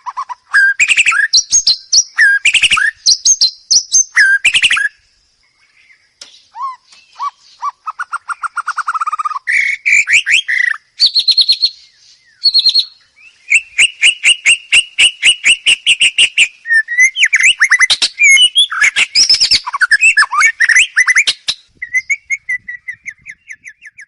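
White-rumped shama singing a loud, varied song of clear whistles, trills and rapid runs of repeated notes, with a short pause about five seconds in.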